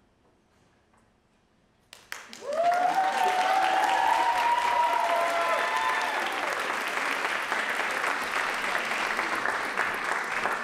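Near silence for about two seconds after the music ends, then an audience breaks into applause and cheering, with rising whoops over the clapping that die down after a few seconds while the clapping goes on.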